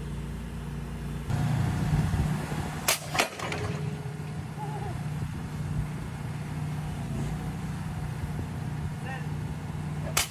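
An engine on the work barge running steadily, getting louder about a second in. Two sharp knocks close together about three seconds in, and two more near the end.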